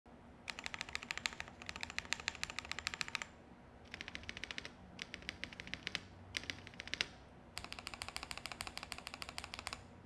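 Typing on a KBD67 Lite R2 mechanical keyboard fitted with lubed KTT Peach linear switches on a polycarbonate plate: quick runs of keystrokes broken by short pauses, with a few single harder strokes.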